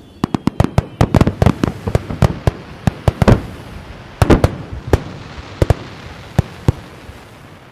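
Aerial fireworks bursting in a rapid barrage of sharp bangs, a dense run of reports followed by a second cluster and a few scattered booms that die away into rumbling echo, as in a star mine sequence.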